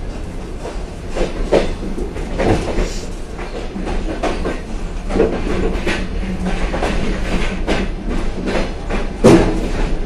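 Passenger railway car rolling into a station, heard from inside by the door. Its wheels knock irregularly over rail joints and points above a steady low rumble, with one louder clunk near the end.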